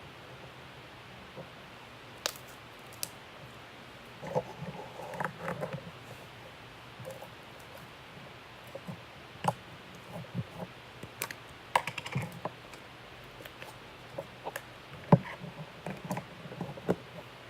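Slime being poked and squeezed by hand: irregular small sticky clicks and pops with a few soft squelches, busier in stretches.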